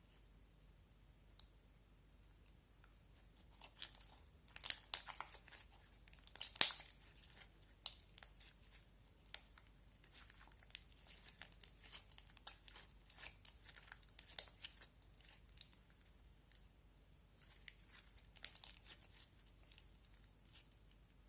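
Slime being squeezed and stretched by hand, giving irregular sharp crackling and popping sounds, loudest in a few clusters of bursts.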